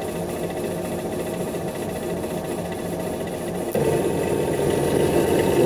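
A 1/4 hp bench drill turning an Ultra Core 24 permanent-magnet generator, with a steady mechanical hum. The generator is under heavy electrical load, dragging the drill down to about 240 RPM. About three and a half seconds in, the sound turns suddenly louder and its low pitch shifts.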